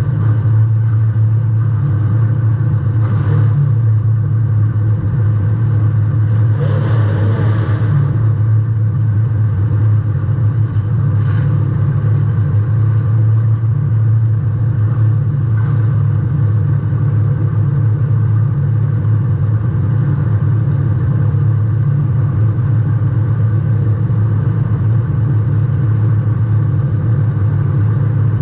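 Compact-class race car's engine running hard and steady at racing speed, heard from a camera mounted on the car's rear, with a brief louder rush of noise about seven seconds in.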